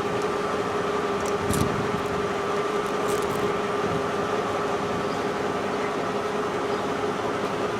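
Steady machine hum with a constant drone, like a running car or its air-conditioning fan, with a few faint crinkles of protective film being peeled off the new turn-signal light.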